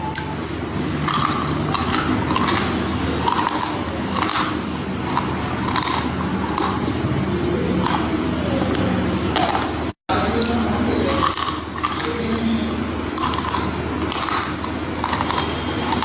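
Pieces of baked clay pot and clay stone being chewed, with short crunches about twice a second.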